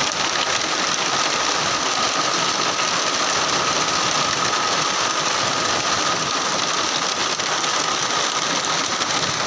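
Steady rain falling on garden foliage, an even, unbroken hiss.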